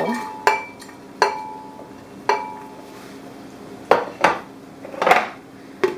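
Walnuts and garlic knocking into a glass blender jar, the first few knocks followed by a short clear ring from the glass. About four and five seconds in come a few louder, duller clatters. The blender motor is not running.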